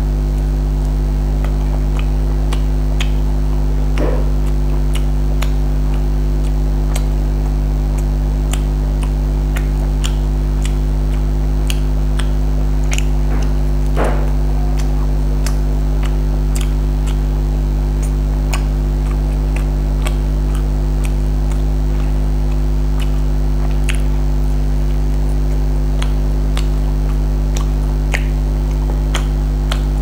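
A steady, loud low electrical hum runs under close-up eating sounds: many small wet clicks and smacks of chewing chicken and of fingers picking at rice on a plate.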